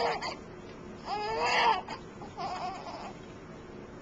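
Newborn baby crying in short wavering wails: a loud one about a second in, then a weaker one near the three-second mark.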